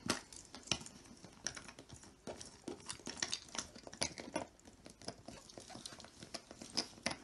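Irregular small plastic clicks and taps, with some rustling of the pool's vinyl, as white plastic valve fittings are handled and screwed into the valves of an inflatable birth pool.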